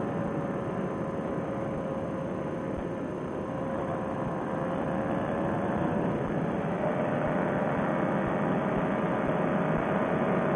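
Paramotor trike engine and propeller running steadily in cruising flight, mixed with wind rush. Its note rises slightly about two-thirds of the way through. The sound is thin and cut off in the treble, as heard through a Bluetooth headset microphone.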